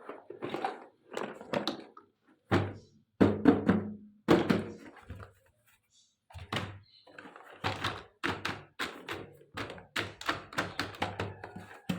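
Knocks, taps and thunks of miniature toy kitchen pieces and their packaging being handled. The heavier thunks come a few seconds in, there is a short pause, and then quicker, lighter tapping follows.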